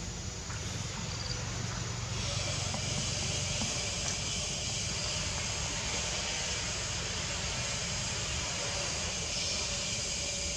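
Steady outdoor background noise: a broad hiss over a low rumble, getting a little louder about two seconds in.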